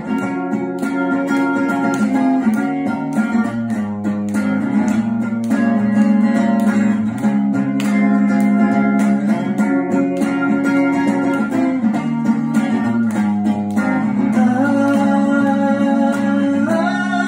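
Guitar strummed in a steady rhythm, playing the chords of a song live.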